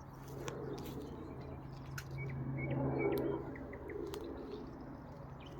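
Helicopter droning overhead: a steady low hum with overtones that grows louder to a peak about three seconds in, then fades.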